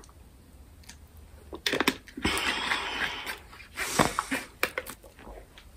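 A person drinking water from a plastic bottle: small clicks and swallows, about a second of breathy hiss a little past two seconds in, and a sharper knock around four seconds in.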